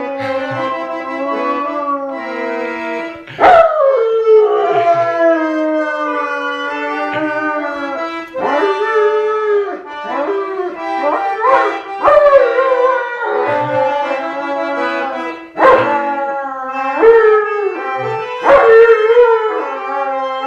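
German Shepherd howling along to an accordion, a series of long howls that slide down in pitch over the accordion's held chords.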